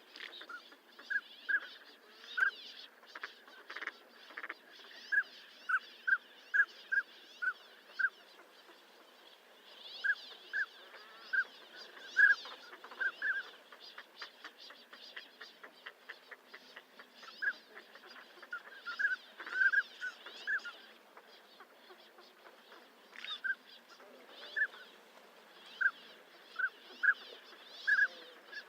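Northern pintails calling: short, clear whistled notes given in loose runs of several, with pauses between the runs.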